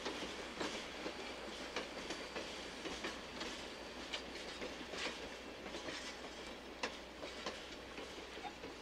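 Empty log flatcars rolling slowly, their steel wheels clicking and clanking in an uneven run of sharp knocks over a steady rolling rumble.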